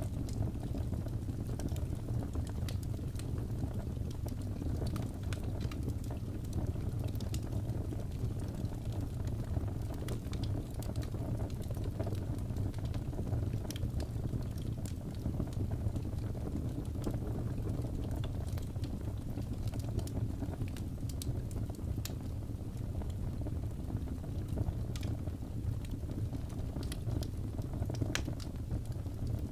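Crackling fireplace: a steady low rumble of burning wood with scattered small pops and crackles throughout.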